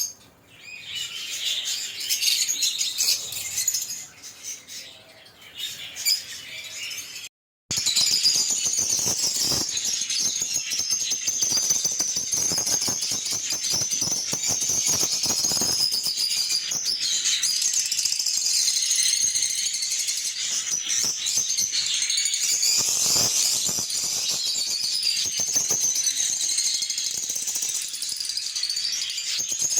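Lovebirds chirping and chattering in high-pitched calls. After a brief break about seven seconds in, the chatter becomes dense and continuous.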